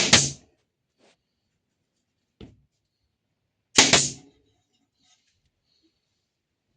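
Two sharp impacts about four seconds apart, each a quick double knock, with two faint clicks between them.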